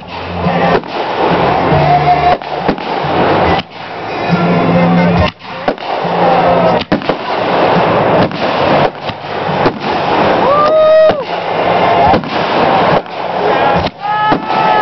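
Fireworks display: a rapid run of loud bangs from bursting aerial shells over continuous crackling, with whistling tones that rise and fall about ten seconds in and again near the end.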